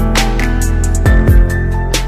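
Music: sustained chords over a drum beat with deep kick drums and cymbal hits.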